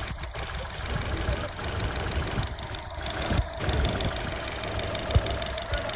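2006 Subaru Legacy's boxer engine idling with the A/C running, a steady rumble with a mid-pitched whine that comes in about a second and a half in. There is a single sharp click near the end. The A/C is working properly, frosting the low-side pipe with condensation.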